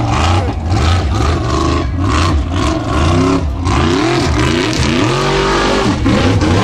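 Formula Offroad buggy's engine revving hard under load up a steep dirt climb, its pitch rising and falling over and over as the throttle is worked.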